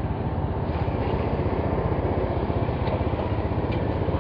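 Honda Beat FI scooter's small single-cylinder four-stroke engine running steadily at low speed, with a fast, even pulsing.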